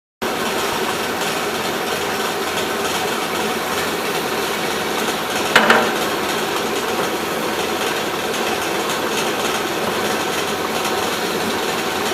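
Amada HA-250W horizontal band saw running with a steady mechanical noise, with one brief sharp clank about five and a half seconds in.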